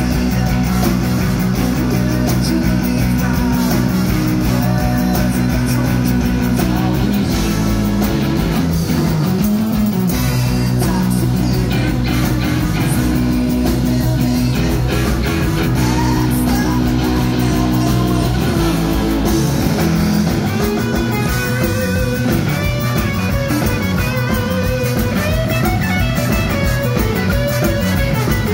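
Rock band playing live and loud, led by a Les Paul-style electric guitar through Marshall amplifiers, with bass guitar and drums.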